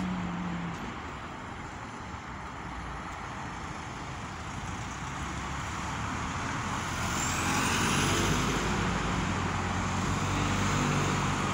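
Street traffic: a steady road hiss, with a motor vehicle's engine and tyres growing louder from about seven seconds in as it comes by.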